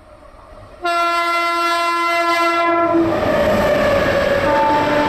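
WAP-7 electric locomotive sounding one steady horn blast of about two seconds, starting about a second in. The locomotive and coaches then pass close at speed, with a loud rush of wheel and rail noise.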